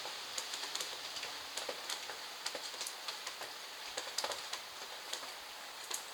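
Steady rain: an even hiss with frequent, irregular drops tapping close to the microphone.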